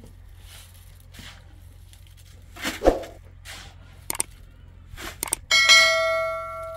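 Soft strokes about twice a second, a heavy knock about three seconds in, a few sharp clicks, then a metal object struck hard and ringing like a bell, fading over about a second and a half near the end.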